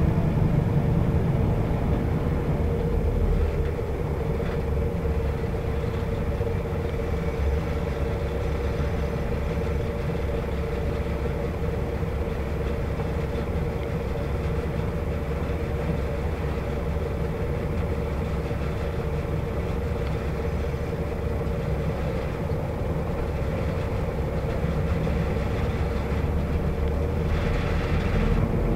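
Volvo B7R bus's six-cylinder diesel engine and road noise heard from inside the passenger cabin, cruising at motorway speed. It is a steady low drone with a constant whine running through it, growing slightly louder near the end.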